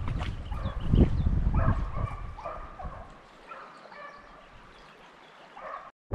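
A dog baying in the distance, a string of short drawn-out calls that grow fainter after the first few seconds, typical of a hound chasing a rabbit. Wind rumbles on the microphone until about halfway.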